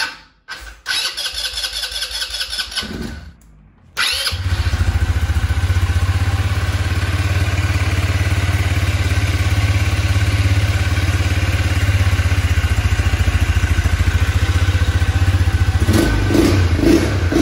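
Single-cylinder four-stroke engine of a brand-new KXD 200 cc ATV being started for the first time: the electric starter cranks for a couple of seconds, the engine catches about four seconds in and settles into a steady idle.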